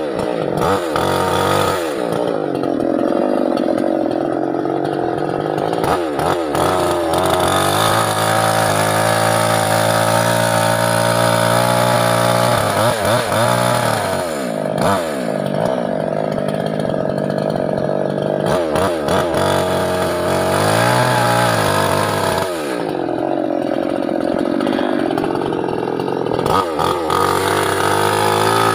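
Small two-stroke petrol chainsaw running hard while cutting teak wood. Its engine pitch sags twice, for several seconds each time, as the chain bites into the wood, and climbs back in between.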